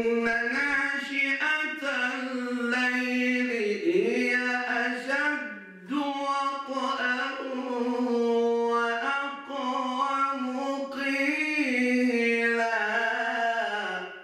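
A man reciting the Quran solo in the melodic, sung style. He holds long ornamented notes with pitch turns, pausing briefly for breath about four and six seconds in. The phrase ends on a falling note.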